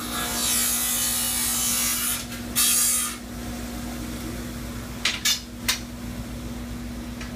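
A power saw cutting through a golf club shaft for about two seconds, then a shorter second cut, over a steady motor hum. A few sharp clicks follow about five seconds in.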